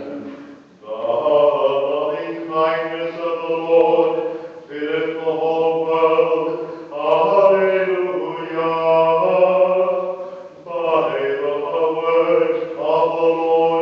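A man's voice chanting part of the sung Mass in phrases of a few seconds each, with short breaths between them.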